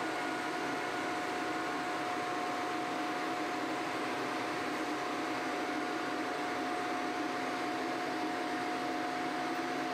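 Crankshaft milling machine running during rough milling: a steady mechanical whir with a constant whine that neither rises nor falls.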